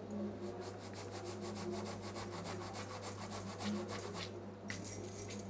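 Palms rubbing briskly together to crush ajwain (carom seeds): a fast, dry rasping of many short strokes, several a second, that stops about four seconds in, with a few last rubs near the end.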